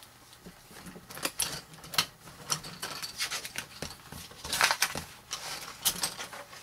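Plastic model-kit sprues clattering and rattling against each other and the cardboard box as the stack is lifted out, in irregular clicks with a louder flurry about four and a half seconds in.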